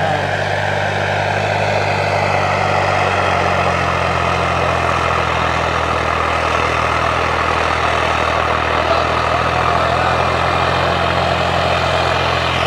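Turbocharged 855 tractor's diesel engine running steadily under heavy load, pulling a cultivator through the soil; the engine keeps its speed and does not stall while the tyres slip. The low engine note shifts slightly about three seconds in.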